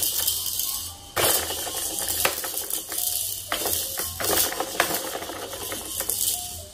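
Plastic baby activity walker's spinning rollers and beads clicking and rattling as a toddler works them by hand, in uneven bursts with a short pause about a second in.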